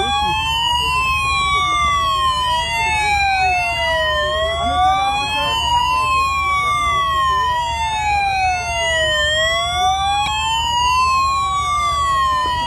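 Several police escort sirens wailing together out of step, each rising and falling slowly over a couple of seconds, over a steady low rumble.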